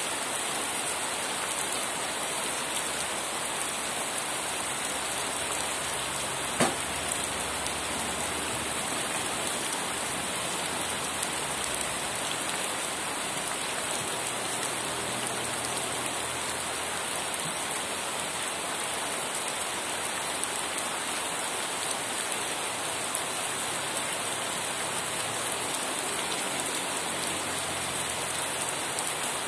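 Steady rain falling and pattering on surfaces, with one sharp tap of a heavier drop about six and a half seconds in.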